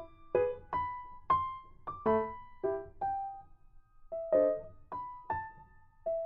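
Background music: a slow melody of single notes, each struck and fading away, about two a second.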